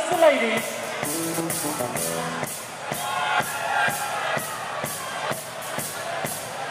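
Live band playing an instrumental passage: electric guitars holding and changing chords over drums keeping a steady beat.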